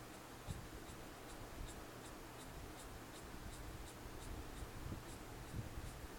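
Orange felt-tip marker scratching across paper in quick, short, evenly repeated strokes, about four a second, as it draws fine hatched lines.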